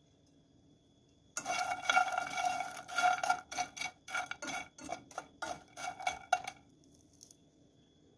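Metal spoon stirring and scraping dry toasted bread croutons around a non-stick frying pan: a rapid run of clicks and scrapes with a ringing metallic tone. It starts about a second and a half in and stops a little before the end.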